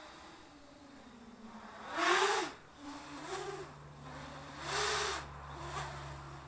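Quadcopter's brushless motors (Redcon 2217, 2200 KV) with 8045 propellers buzzing overhead. The pitch swells into two loud bursts of throttle, about two seconds in and near the end, each a whine that rises and falls, with smaller pitch bumps between. A steady low hum comes in about halfway through.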